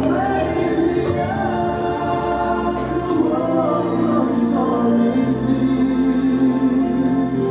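Music: a choir singing over steady held low notes.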